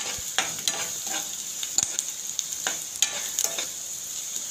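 Chopped onions and garlic sizzling in hot oil in a non-stick pan, stirred with a spoon that scrapes and taps the pan about three times a second over the steady hiss of the frying.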